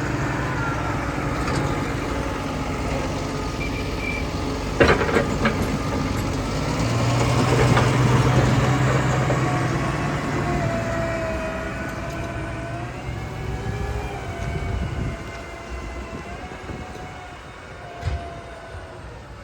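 Heavy farm machinery engine running steadily, with a few sharp knocks about five seconds in. Its pitch wavers and it grows gradually quieter in the second half.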